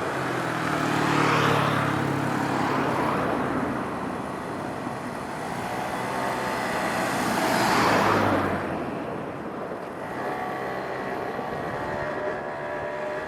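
Two road vehicles drive past one after the other, the first swelling about a second in with a low engine hum and the second, louder, peaking around eight seconds in.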